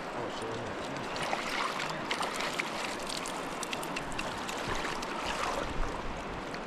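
Shallow river water flowing and rippling, a steady rush with scattered light clicks.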